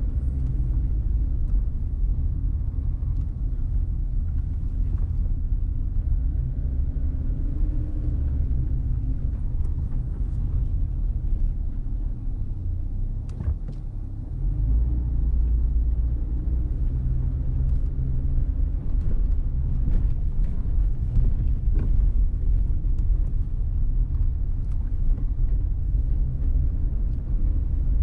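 Steady low rumble of a car driving slowly, engine and tyre noise, easing off briefly about halfway and then picking up again.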